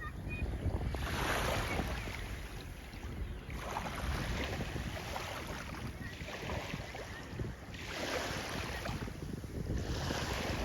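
Wind buffeting the microphone over water rushing and splashing against a windsurf board on the move, with a hiss of spray that swells every few seconds and scattered short slaps of chop against the hull.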